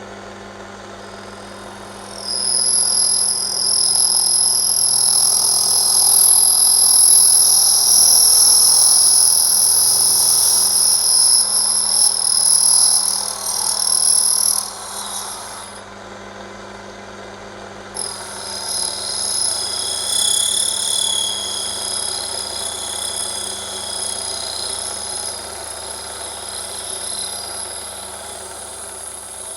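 Metal lathe running with a steady motor hum while the cutting tool takes a cut on a brass part, giving a loud, high-pitched whine. The whine comes in about two seconds in, breaks off briefly past the middle, then resumes and gradually fades.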